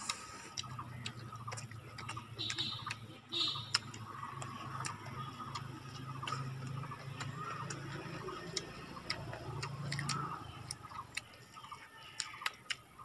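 Close-miked eating sounds: many sharp lip smacks and wet chewing clicks as two people eat rice, chicken and raw cucumber by hand, over a low hum that stops about ten seconds in.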